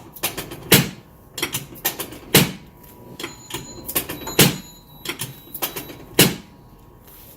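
Chiropractic adjustment of the mid back: a quick run of about a dozen sharp knocks and clacks, spaced half a second to a second apart, as the chiropractor thrusts up and down the spine. They stop a little after six seconds in.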